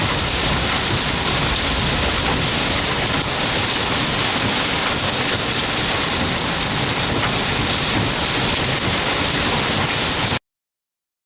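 Heavy rain pouring steadily in a severe thunderstorm, a dense even hiss. The sound cuts off abruptly near the end.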